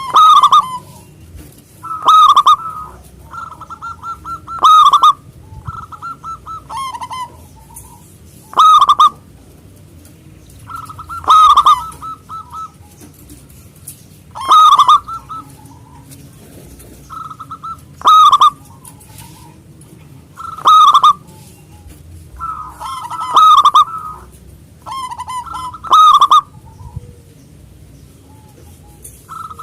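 Zebra dove (perkutut) cooing over and over, about ten loud rolling coos a few seconds apart, with softer trilled coos in between.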